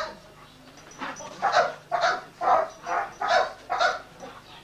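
A dog barking about six times in quick succession, roughly two barks a second, starting about a second and a half in.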